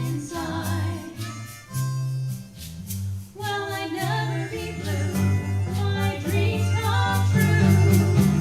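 A small live jazz band playing a song: guitar holding changing low notes under a pitched melody line, with steady percussion hits keeping time. The band briefly thins out about three seconds in, then comes back fuller and louder toward the end.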